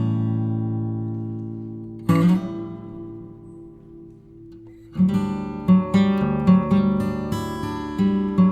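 Background music on acoustic guitar: a couple of strummed chords left to ring, then quicker plucked notes from about five seconds in.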